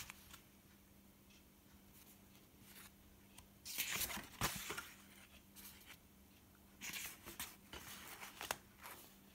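Stiff picture postcards shuffled and slid off a stack by hand: two short spells of card rustling and scraping, about four seconds in and again near the end, over a faint steady hum.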